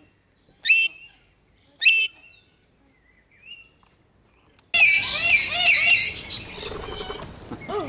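Parrots calling: two short, loud, shrill calls about a second apart, a faint one after a pause, then an abrupt start of a dense chorus of many parrots chattering and screeching together, with a steady high-pitched whine running through it.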